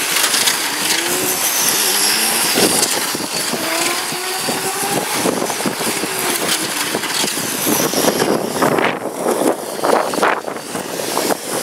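Electric radio-control racing trucks with 17.5-turn brushless motors running laps of a paved oval, their motor whine gliding up and down in pitch as they pass, over a steady hiss.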